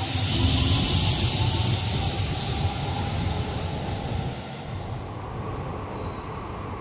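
Kyoto subway train departing along a platform lined with screen doors: a rumble of wheels and motors with a rush of air, loudest about a second in and fading as the last cars pull away.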